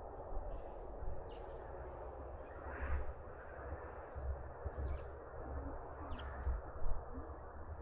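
Sleeping puppy breathing and softly snoring, with one breath swelling about three seconds in, over a steady hiss.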